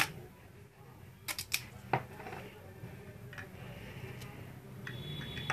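Hands handling small parts at close range: a few sharp clicks, the first four in the first two seconds, then light rustling. A faint steady high whine comes in near the end.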